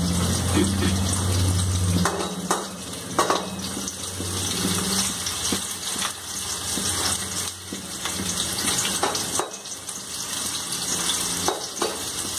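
Sliced onions sizzling steadily as they fry in oil in an aluminium kadai, with a metal ladle scraping and clicking against the pan from time to time. A low hum sounds under it for the first two seconds.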